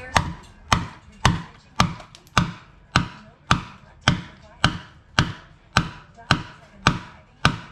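A hammer striking a seal-installer tool about fourteen times in a steady rhythm of roughly two blows a second, driving a seal into place on a Jeep 3.6 Pentastar engine. Each blow is sharp and rings briefly.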